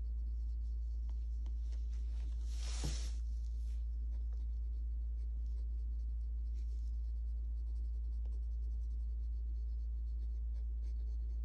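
Graphite pencil scratching across sketchbook paper in soft shading strokes, with one louder, longer stroke about three seconds in. A steady low hum runs underneath.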